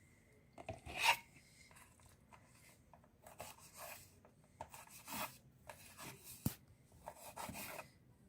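Kitchen knife cutting through pineapple on a board, in short rasping strokes, with a sharp tap about six and a half seconds in.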